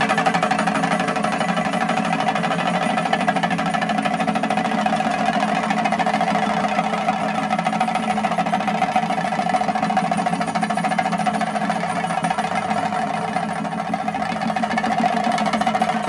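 A row of chenda drums beaten with sticks in a fast, dense, unbroken roll, the chenda melam of a Kerala street procession, running at a steady loud level.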